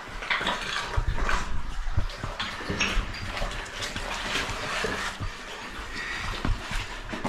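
A caver crawling through a wet cave passage: irregular scuffs, knocks and splashes close to the microphone, with heavy breathing.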